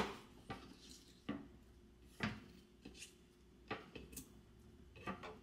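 Light, scattered knocks and clicks of kitchenware handled on a counter: about eight short taps spread over five seconds, the sharpest at the very start.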